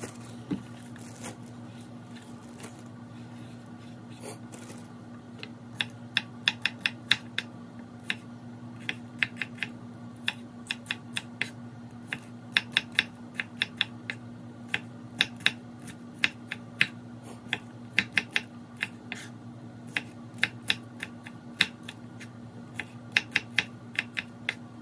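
Kitchen knife chopping small onions on a wooden cutting board: sharp knocks in quick runs, starting about five seconds in, over a low steady hum.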